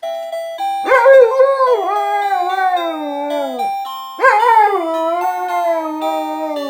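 A dog howls twice along with an electronic doorbell tune: two long howls, each starting high and sliding down, over a melody of stepped beeping notes.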